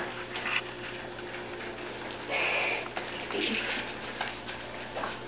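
Golden puppies moving about on sheets of paper: the paper rustles and crinkles under their paws in short bursts, the longest about two seconds in.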